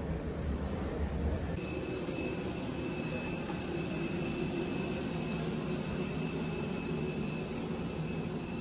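Steady hiss of a parked Airbus A320neo's cabin air with a constant high whine from the aircraft's air and power systems during boarding. About a second and a half in, a deep low hum from the jet bridge gives way to this cabin sound.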